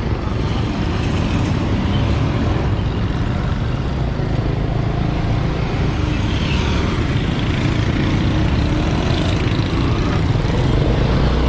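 Steady engine and road noise of a vehicle in motion, heard from on board as it crosses a bridge.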